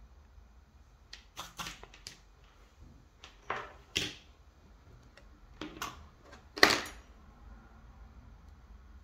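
Small metal hand tools clicking and clattering on a workbench mat as they are put down and picked up: a soldering iron set aside and flush cutters taken up to the wire. The sharp clicks come in three short clusters, the loudest about seven seconds in.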